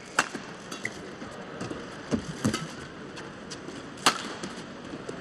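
Badminton rally: rackets strike the shuttlecock with sharp cracks. The loudest come just after the start and about four seconds in, with lighter knocks between them, over a low steady hall ambience.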